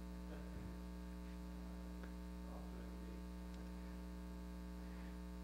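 Steady electrical mains hum, a low buzz with its evenly spaced overtones, in the sound system, with only faint scattered room noises over it.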